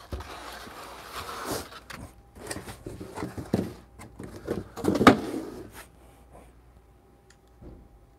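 Molded pulp packing insert scraping and sliding out of a cardboard box, with plastic wrap rustling and a few knocks as it is handled and stood on a table, the loudest knock about five seconds in. Quiet handling noise after about six seconds.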